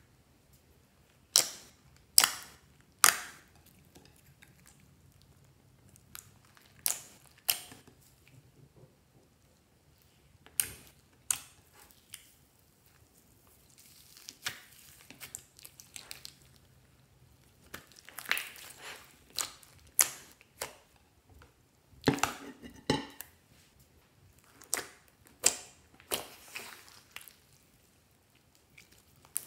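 Clear slime full of foam beads and glitter being kneaded and stretched by hand: irregular sharp wet clicks and pops, three loud ones in the first three seconds, and a denser crackling run about two-thirds of the way through.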